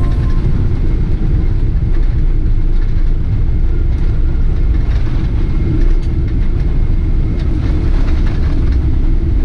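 Cabin noise of a Boeing 777-300 rolling along the runway after landing: a steady low rumble of engines and wheels on the tarmac, heard from inside the cabin, with a few faint clicks.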